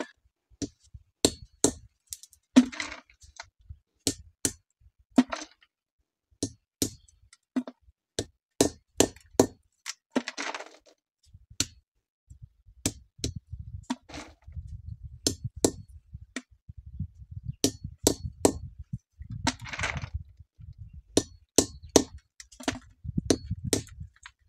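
Dried juniper (andız) berries being cracked with repeated sharp knocks, about one or two blows a second at an uneven pace, with a few short rustling sounds between them and a low rumble under the second half.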